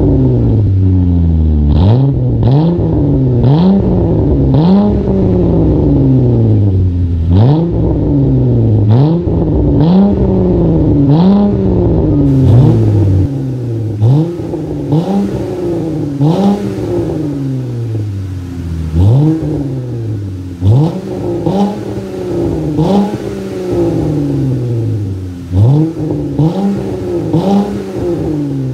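Dodge Durango's 3.6-litre V6 breathing through a true dual catback exhaust, free-revved in quick blips about once a second, each rev rising sharply and falling back to idle.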